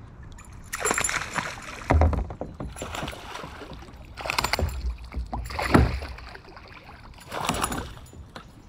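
Kayak paddle strokes: water swishing and splashing in five separate surges a second or two apart, with a couple of dull thumps, about 2 and 6 seconds in.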